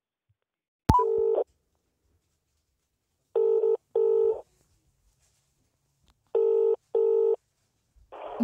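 British telephone ringback tone heard through a phone's loudspeaker while a call rings out: a click and a short ring about a second in, then the double 'brr-brr' ring twice, about three seconds apart, as the number has not yet answered.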